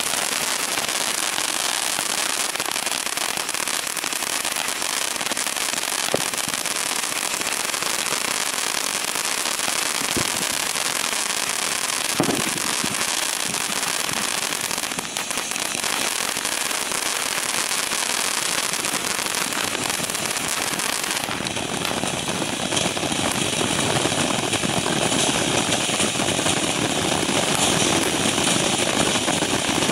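Topgun TG4252 Galactic Warship ground fountain firework burning: a steady spraying hiss of sparks with crackling and a few sharp pops. About two-thirds of the way through a new effect starts and the spray gets louder and harsher.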